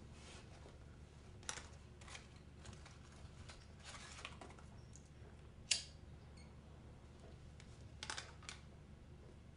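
A handful of faint, irregular clicks and light taps, the sharpest a little past halfway, over a low steady room hum.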